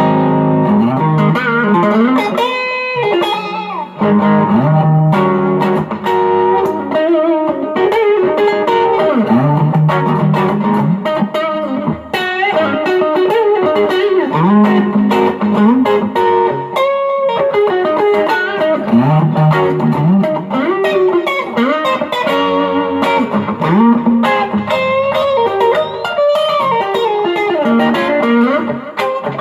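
M-Musi Virgo Fusion electric guitar on its middle pickup position, played through overdrive: a continuous stretch of lead and chord playing with many bent notes.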